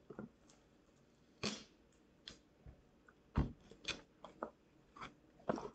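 Duct tape and scissors being handled: a scattered series of short snips, clicks and rustles as tape is readied to be cut.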